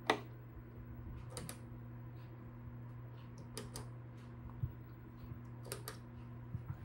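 Sharp click of a push button being pressed on a Zenith Space Command television's front control panel, the Chromatic button, followed by a few softer clicks, over a steady low hum.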